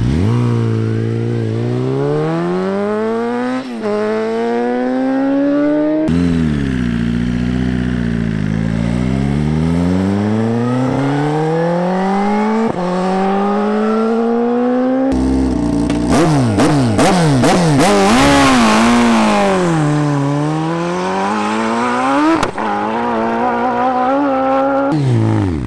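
Sport motorcycle engines at full throttle, accelerating hard through the gears: the pitch climbs steeply and drops back at each upshift, over and over. Several runs follow one another with sudden cuts, and a noisier, wavering stretch comes in the middle.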